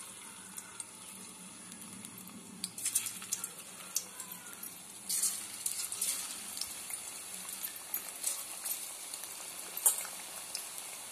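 Batter-coated bitter gourd slices deep-frying in hot oil in a kadhai: a steady sizzle with frequent sharp crackles and spits as more slices are dropped in, and a louder burst of spitting about five seconds in.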